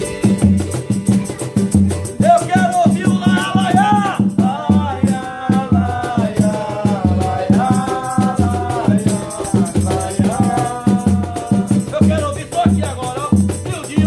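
Music with a steady beat on a low drum and a shaker rattling along. A melody line joins about two seconds in and drops out near the end.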